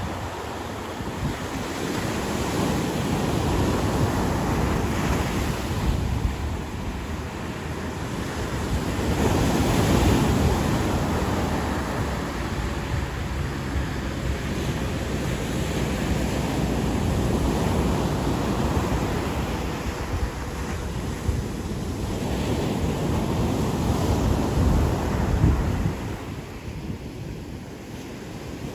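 Ocean surf washing onto a beach, swelling and easing in slow surges, with the loudest surge about ten seconds in and another near the end.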